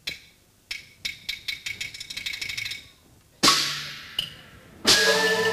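The percussion section of a Hainanese opera band plays strikes that speed up into a roll. A loud crash comes about three and a half seconds in, and a second crash near the end brings in the melodic instruments.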